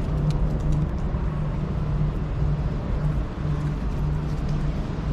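Steady low rumble of vehicle traffic, with a low hum that fades in and out.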